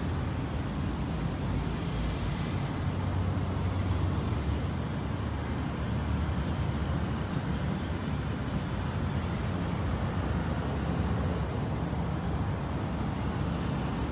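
Steady low rumble with a fainter hiss above it: continuous outdoor background noise with no distinct event.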